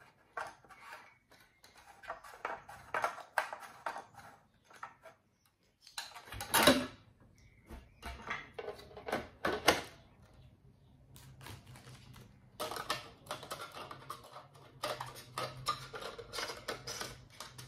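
Hard plastic parts of a Xiaomi Mi Smart Standing Fan 2 Lite being handled and fitted together: the grille pressed and turned against the fan head, giving irregular clicks, knocks and rattles, with one louder knock about six and a half seconds in.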